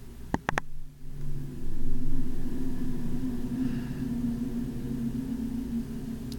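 A low, steady mechanical hum and rumble that grows louder about two seconds in, preceded by three quick clicks near the start.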